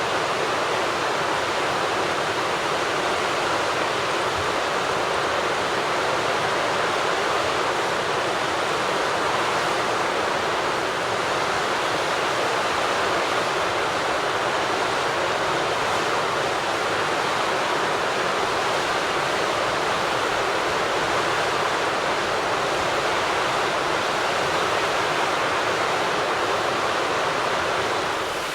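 Flowing water rushing steadily and evenly, like a stream or weir, with no other sound standing out.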